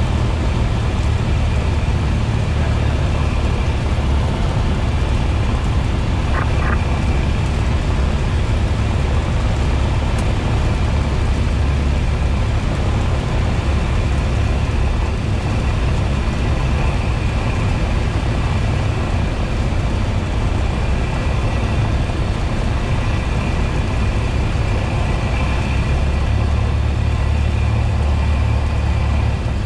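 Cessna 172S's four-cylinder Lycoming engine and propeller droning steadily, heard inside the cabin.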